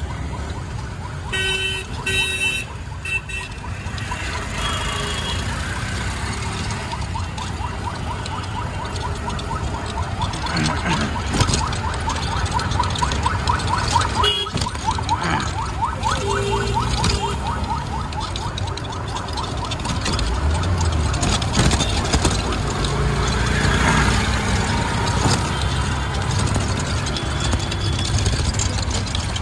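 Busy city street traffic heard from a moving cycle rickshaw: a steady rumble of engines and road noise. Brief ringing tones come about two seconds in, and a fast, high rattling trill runs from about eight to sixteen seconds in.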